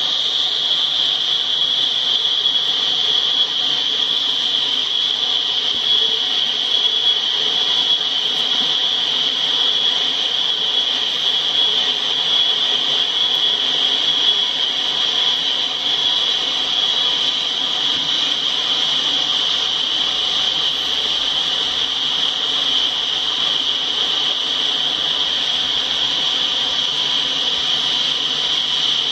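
Freight train of tank cars rolling past, the steady rumble and hiss of steel wheels on the rails, with a strong high-pitched edge.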